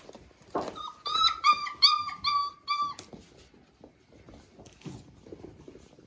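Month-old Weimaraner puppy whining: a quick string of about six short, high-pitched cries over some two seconds, starting about a second in.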